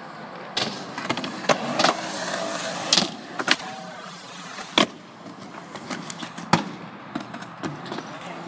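Skateboard wheels rolling over concrete, broken by several sharp clacks of the board popping and landing during flip tricks.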